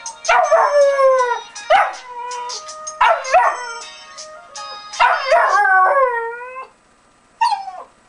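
Rottweiler puppy howling at a phone alarm: several drawn-out howls, each falling in pitch, over the alarm's steady ringing tone. Both stop about two-thirds of the way in, and a single short yip follows near the end.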